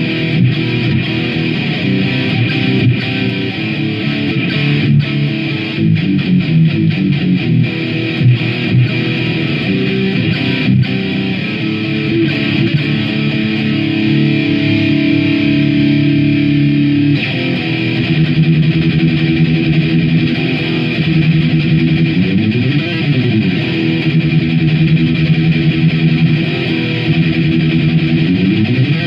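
Electric guitar played through distortion and effects, a riff of held, overlapping notes, with notes sliding down and back up twice in the later part.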